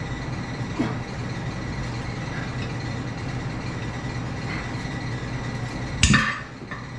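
Steady low hum in the background, with a light click just under a second in and a single sharp metallic clank with a short ring about six seconds in: a steel tire iron knocking against the rim while a tire is pried off by hand.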